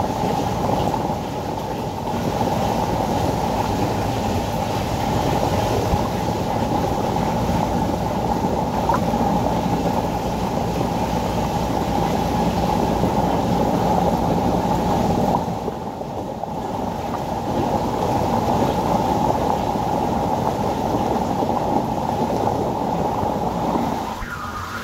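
Steady rumbling hiss of a reef aquarium's circulating water and pumps, full of fine bubbles. It is briefly quieter just past halfway.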